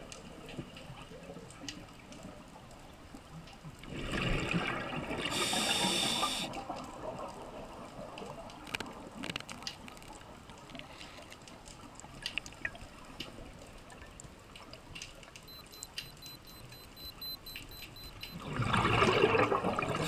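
Scuba diver's exhaled bubbles from the regulator heard underwater: two bubbly surges, about four seconds in and again near the end, over a low steady hiss with scattered faint clicks.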